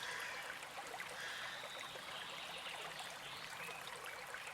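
Faint, steady rushing and trickling noise, like running water.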